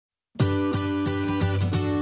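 Intro music starting after a brief silence: a bright tune of short notes struck at a quick, even pace.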